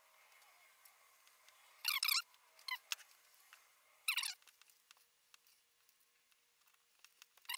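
A few short, faint squeaky scrapes as a PL-259 screw-on connector is twisted down onto coax cable by hand and then with pliers: about two seconds in, again briefly, about four seconds in, and once more at the end.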